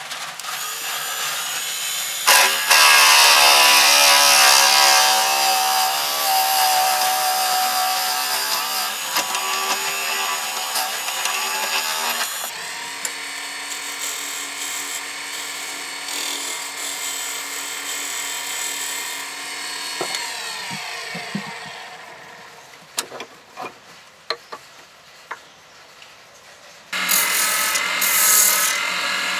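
Wood lathe running while a turning tool cuts into a spinning hardwood blank, the cutting with a steady ringing whine. About two-thirds of the way through the sound falls away with the pitch sweeping down, a few clicks follow, and cutting starts again near the end.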